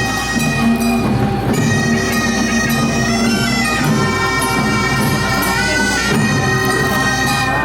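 Korean chwitadae procession band playing: taepyeongso double-reed horns carrying a sustained, stepping melody over a low held drone.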